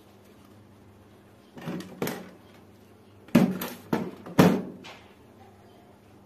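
Airsoft pistol frame and parts knocking and clattering on a wooden tabletop as they are handled and set down. Two knocks come about a second and a half in, then a louder run of about four knocks between three and four and a half seconds in.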